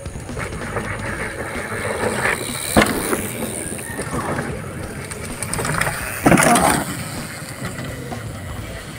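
Bicycle riding over a dirt trail: tyre rumble and rattle, with a sharp knock about three seconds in and a louder, brief clatter at about six and a half seconds.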